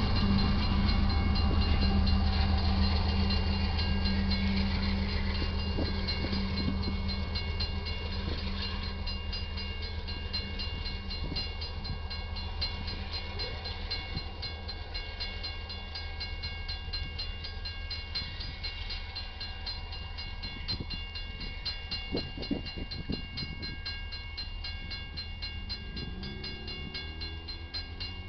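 Freight train going by, the drone of a GE AC44CW diesel locomotive's engine over rolling cars, getting steadily quieter as it moves away.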